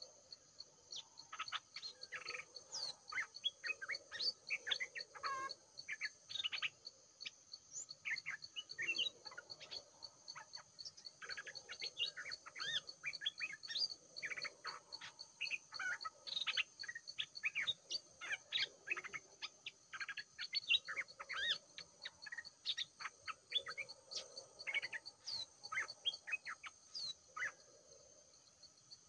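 Songbird chirping and trilling in quick, busy phrases, from a caged decoy bird and birds around it, over a steady high-pitched insect drone.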